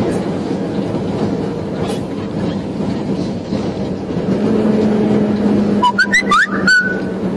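Steady engine drone and road noise inside the cab of a heavy vehicle on a highway, the engine hum growing a little stronger about four seconds in. Near the end comes a quick run of high chirping whistles, some rising, with a few clicks.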